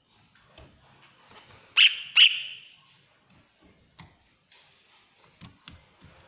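Cucak ijo (greater green leafbird) giving two loud, sharp, shrill calls in quick succession about two seconds in, followed by a few faint clicks.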